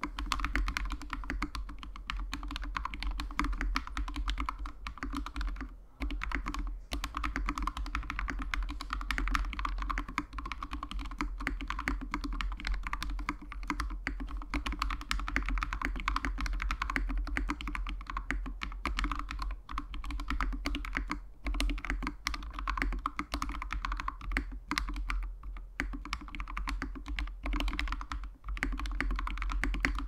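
Fast, continuous typing on a GMMK TKL mechanical keyboard with Gateron Yellow linear switches lubed with Tribosys 3204, PBT doubleshot keycaps and clipped, lubed Cherry stabilizers, at about 60 words a minute. There is a brief pause about six seconds in.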